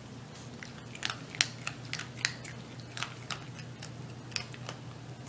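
Small Chihuahua-mix dog chewing a crunchy treat: a dozen or so irregular sharp crunches over a few seconds.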